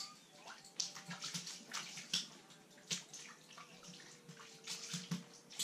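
A freshly landed trout flopping and slapping on wet ice, with water splashing: a string of irregular wet slaps.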